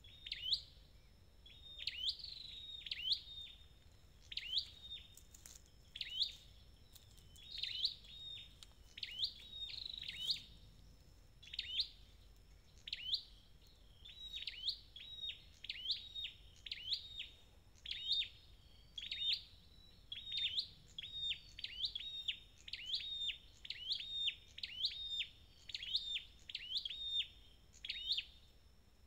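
Red-headed flowerpecker (chim sâu đầu đỏ) in a cage giving a long series of sharp, high chip calls, about one or two a second, often in quick pairs.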